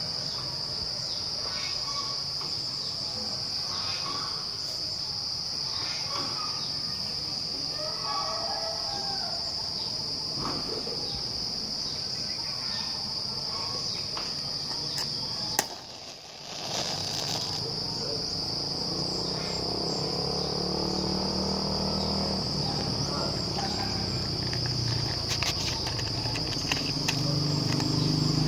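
Insects droning in one steady, high, unbroken note, which drops out for about a second midway. A low hum builds up underneath in the second half.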